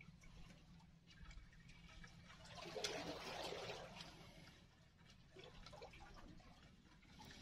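Near silence with faint water lapping, swelling a little about three seconds in with a short click.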